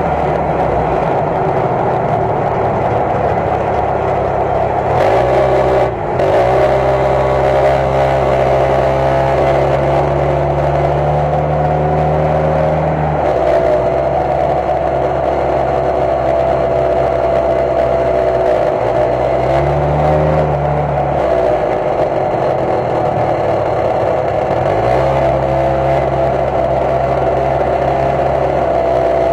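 Jeep engine and exhaust running and being revved, rising three times (held for several seconds, briefly, then held again), with a rattle from a loose or broken part inside the muffler.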